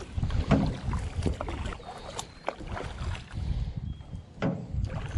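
Kayak paddle strokes dipping and splashing beside an aluminum canoe, in uneven swells, with a few light knocks.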